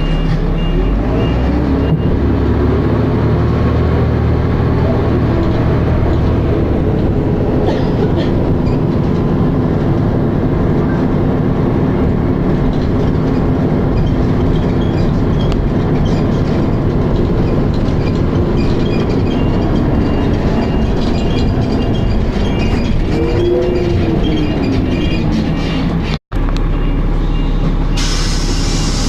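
Dennis Arrow double-deck bus under way, heard from on board: a steady engine and gearbox drone, with a whine that rises and then falls in pitch about 23 seconds in. The bus's ZF automatic gearbox is slipping. The sound cuts out for an instant about 26 seconds in.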